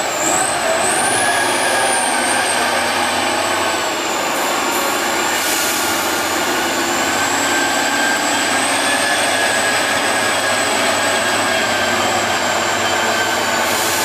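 Tatra 813 8x8 trial truck running as it crawls along, its engine sound steady with a thin high whine held over it that drifts slightly in pitch.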